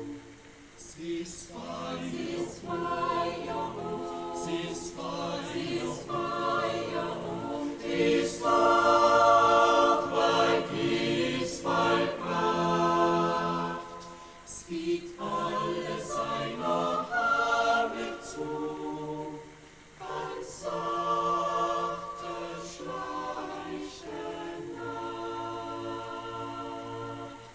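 A choir singing unaccompanied: a folk song in sustained chords, phrase after phrase, with short breaks between phrases.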